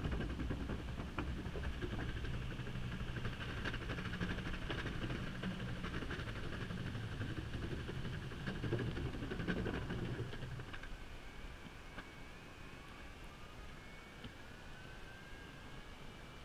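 Evolve Bamboo GTX electric skateboard's wheels rumbling over a plank bridge deck, with many short clacks at the joints. About ten seconds in it rolls onto smooth concrete and goes much quieter, and a rising whine from its electric motors comes in near the end as it speeds up.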